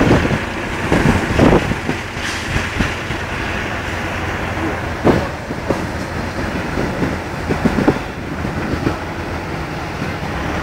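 Tatra 813 eight-wheel truck's diesel engine running steadily as the truck crawls over rough ground, with a few sharp knocks on top.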